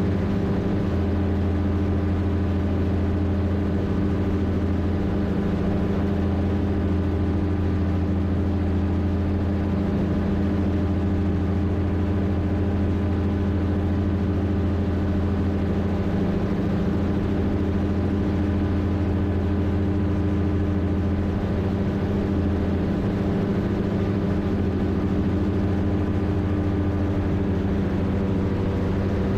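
Rotax 582 two-stroke twin engine and propeller of an X'Air Standard microlight running steadily at cruise power, a constant low drone.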